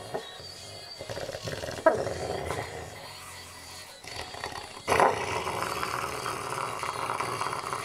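Sleeping dog growling and snarling in a dream, in two bouts: a short one about two seconds in and a longer one starting about five seconds in.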